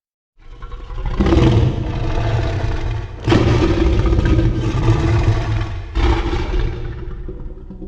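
A loud, layered Godzilla-style monster sound effect, heavy in the low end and mechanical in character. It comes in about half a second in, swells in sudden steps around one, three and six seconds in, and eases off near the end.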